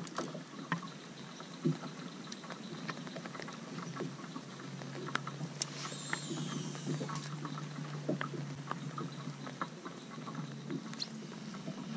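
Scattered light clicks and knocks of a rod and tackle being handled as a baited line is cast from a fishing boat. A low steady hum runs through the middle, and a brief high warble comes about six seconds in.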